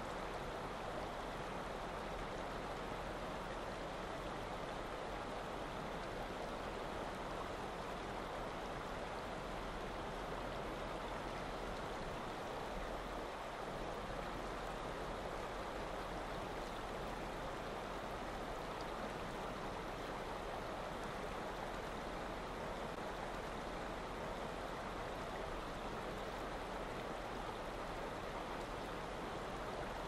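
Steady rushing noise like running water, even throughout, with no separate splashes, blows or calls standing out.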